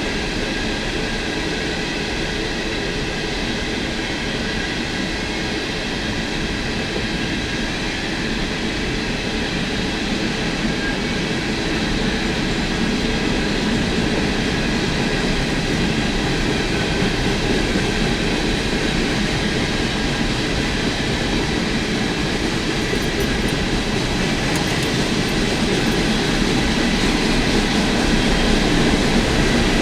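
CSX freight train's cars rolling past in a continuous steady rumble of wheels on rail, growing slightly louder near the end.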